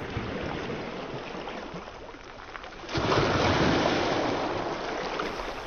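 Sea surf washing ashore: a steady wash of waves, with a louder wave breaking about three seconds in and slowly receding.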